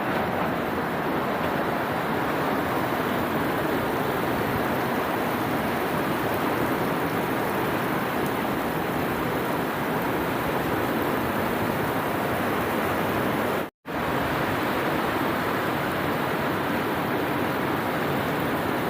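Heavy tropical downpour: a loud, steady, dense hiss of rain and running water, cutting out for an instant about fourteen seconds in.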